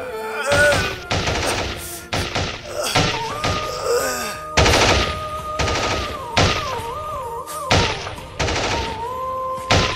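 Single rifle shots, about a dozen, fired at irregular spacing over background music that holds a long melodic note through the middle.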